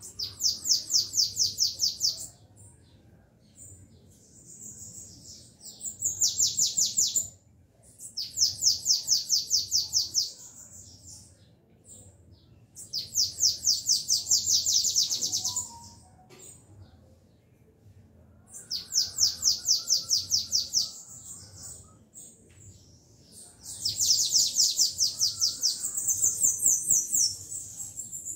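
Caged bananaquits (sibites) singing against each other in a song contest. Repeated bouts of a rapid, high trill, each about two seconds long, come six times with short pauses between them; the last bout, near the end, runs longer.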